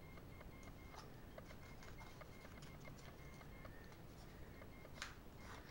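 Near silence, with faint small clicks of a small cardboard knife box being handled and its tray slid out of the sleeve, and one slightly louder click about five seconds in.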